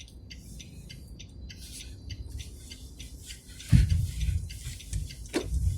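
Cabin noise inside a moving Tata Tiago hatchback: a steady low road-and-engine rumble. Heavy low thumps join it about two-thirds of the way through, with light high ticks and squeaks scattered throughout.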